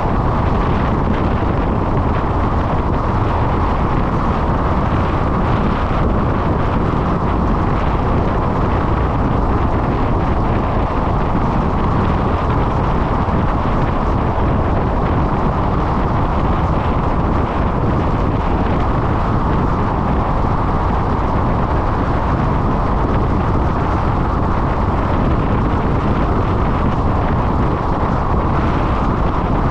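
Wind and road noise from a car driving at steady speed, picked up by a GoPro mounted on the hood: a constant rush, heaviest in the low end, that holds at one level throughout.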